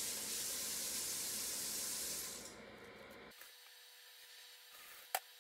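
Running water, a steady hiss that fades out about two and a half seconds in, leaving faint room tone with a small click near the end.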